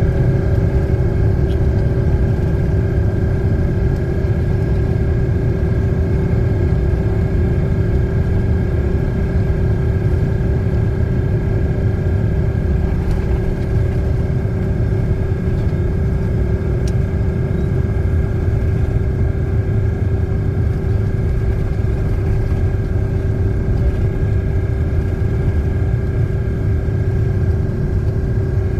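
Steady low rumble of a running vehicle, with a constant hum and a higher whine held at one unchanging pitch.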